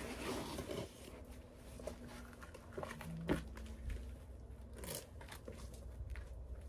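Faint scuffing and rustling of people moving about on gritty granite and shifting a bouldering crash pad, with scattered light clicks and one sharper knock about three seconds in, over a low steady rumble.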